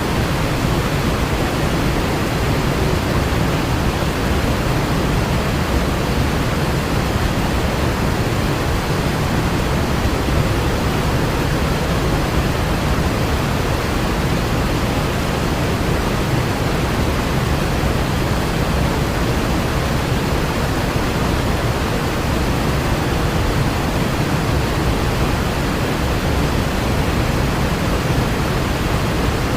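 Floodwater rushing in a torrent, a loud, steady rush of water that does not let up.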